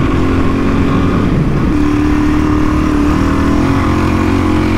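Suzuki DR-Z single-cylinder dirt bike engine running under load through desert sand, its note shifting in pitch a couple of times as the throttle changes.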